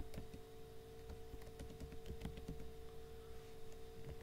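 Typing on a computer keyboard: an uneven run of key clicks as a word is typed. A faint steady hum runs underneath.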